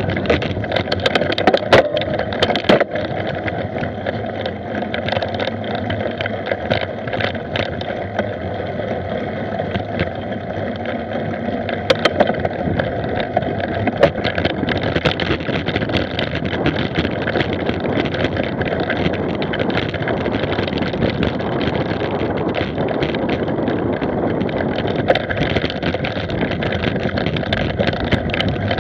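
Mountain bike being ridden fast over bumpy dirt and grass: a steady rushing of tyres and air with frequent rattles and knocks as the bike hits bumps.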